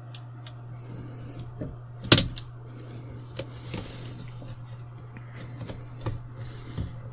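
Plastic screen bezel of a Dell laptop being prised off with a spudger: light scraping and small clicks as the clips give, with one loud snap about two seconds in. A steady low hum runs underneath.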